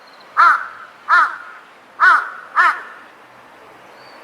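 Large-billed crow giving four short caws within the first three seconds, each call rising and falling in pitch.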